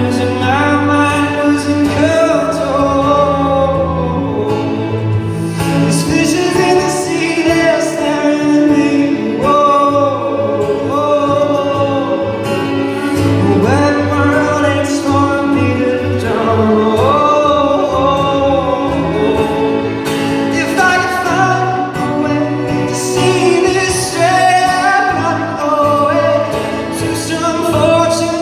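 Live music: a man singing a slow song over sustained instrumental accompaniment.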